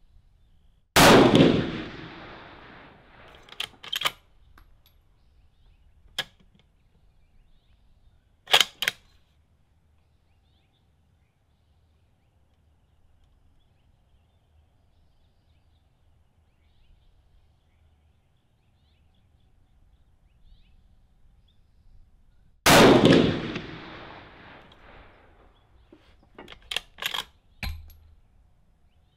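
Two shots from a bolt-action 6.5 Creedmoor rifle with a carbon fiber barrel, about 22 seconds apart, each ringing out and dying away over a couple of seconds. Sharp metallic clicks follow each shot as the bolt is worked to eject the case and chamber the next round.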